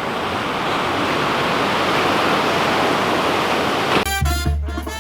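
Ocean surf rushing steadily on a beach. About four seconds in, upbeat Latin music with a strong bass beat cuts in suddenly.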